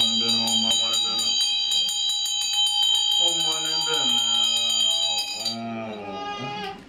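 Low male ritual chanting on a nearly steady pitch, pausing briefly about a second in and resuming about three seconds in. Over it a hand bell rings steadily, struck rapidly and evenly by its clapper, until it stops about five and a half seconds in.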